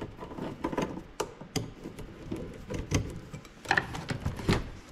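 A rubber air-intake elbow being worked off by hand, with irregular clicks, knocks and rubbing scrapes of rubber against the surrounding parts.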